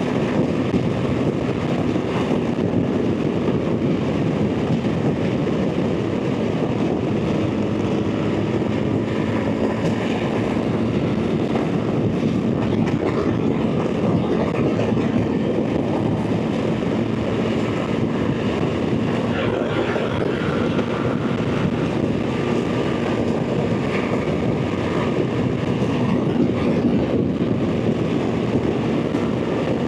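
BMW R 1300 GS Adventure's boxer twin engine droning steadily at highway cruising speed, under a thick rush of wind and road noise.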